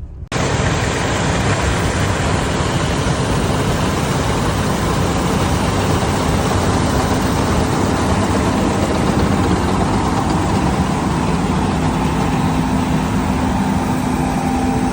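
Heavy diesel vehicle engine running steadily: a loud, even rumble and hiss with a faint steady hum, cutting in suddenly just after the start.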